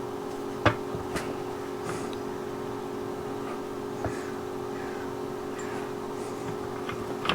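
Small clicks and rustles of hands working twisted wire ends into an insulated crimp splice cap, the sharpest click a little under a second in, over a steady background hum.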